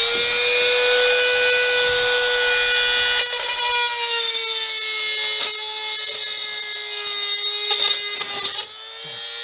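Dremel rotary tool running at high speed with a steady high-pitched whine as it cuts away plastic grille mesh; the pitch sags a little under load and the sound drops in level near the end.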